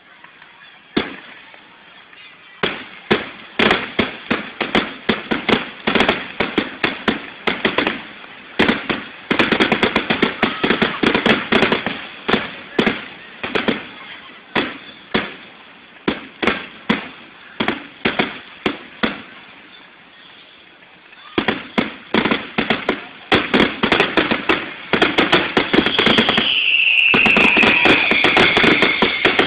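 Aerial fireworks display: dozens of sharp bangs and pops from bursting shells in rapid volleys, with a short lull about two-thirds of the way through and then a heavier volley. Near the end a whistle falls in pitch over a couple of seconds.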